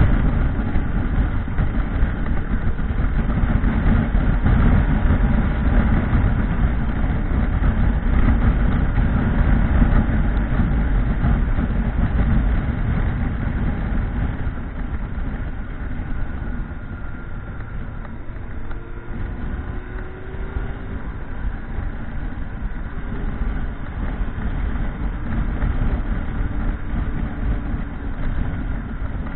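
Motorcycle on the move: heavy wind rumble on the microphone over the engine running, easing somewhat about halfway through.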